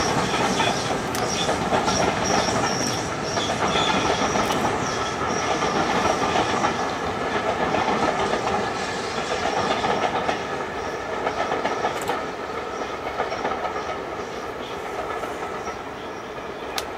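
LNER K4 class 2-6-0 steam locomotive No. 61994 hauling a train of coaches past, wheels clattering over the rail joints. The sound grows fainter from about ten seconds in as the train draws away.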